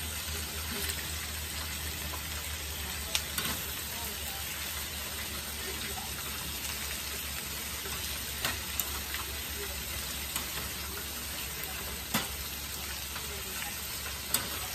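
Whole red snapper, onions and bell peppers frying in hot oil, sizzling steadily, with a few sharp clicks scattered through.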